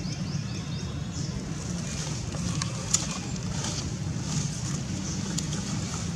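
Steady low outdoor rumble, with faint rustling of dry fallen leaves under a walking macaque and one sharp click about three seconds in.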